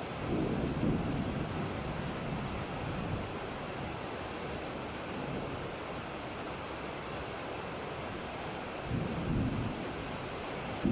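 Steady hiss of heavy rain in a thunderstorm, with low rumbles of distant thunder swelling briefly near the start and again about nine seconds in.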